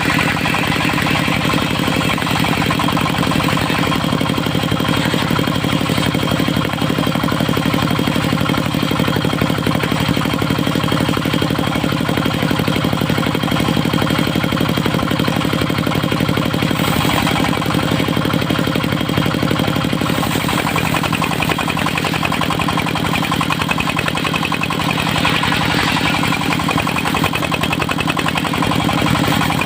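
Engine of a mobile circular-saw sawmill running steadily, with a slight change in its note about two-thirds of the way through.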